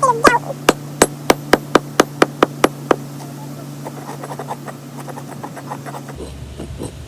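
A hammer striking a rock over and over, about four blows a second, to chip it sharper. About three seconds in, the blows turn into fainter, sparser taps.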